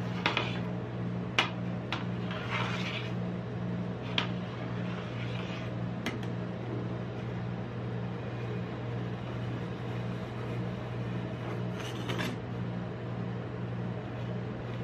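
Metal spatula scraping and tapping on the frozen metal plate of a rolled-ice-cream machine as a sheet of raspberry ice cream is scored into strips and rolled up: a few sharp taps in the first seconds and short scrapes, one late on. Under it runs a steady low machine hum.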